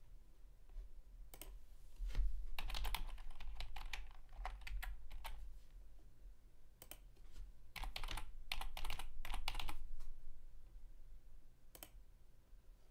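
Typing on a computer keyboard in two quick bursts of keystrokes, then a single click near the end.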